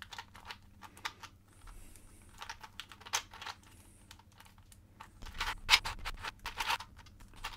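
Loose-fitting plastic pieces of a twisty puzzle clicking and scraping as its layers are twisted by hand, with a cluster of louder clacks about five seconds in.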